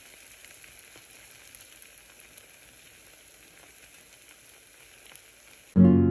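Faint, steady sizzling with small crackles, like food frying in a pan. Near the end, plucked-string music comes in loudly and abruptly.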